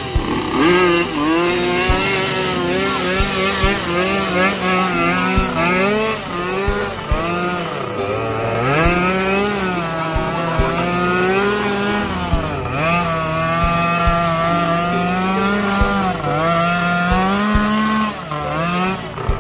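Off-road trail motorcycle engine revving hard and unevenly, its pitch rising and falling again and again as it labours over rough ground, with scattered sharp clacks.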